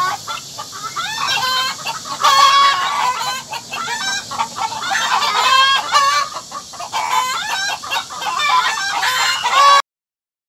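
A flock of chickens clucking and calling over one another in quick, repeated calls, cutting off abruptly near the end.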